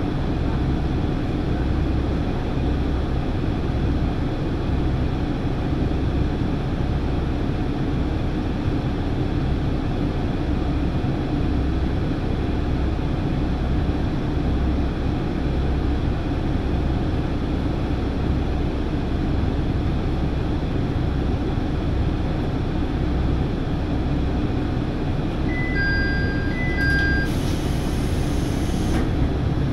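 Diesel railcar engine idling at a standstill, a steady rumble with a slow low throb. Near the end, a brief chime of a few short beeps, then a short hiss of air.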